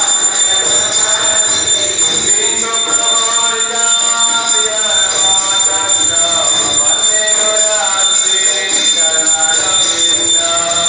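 Aarti hand bell rung without pause, a steady high ringing, with devotional singing joining about two and a half seconds in.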